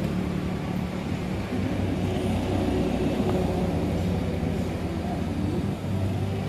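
Steady low engine drone, like a motor vehicle running, with a constant low hum over a background hiss.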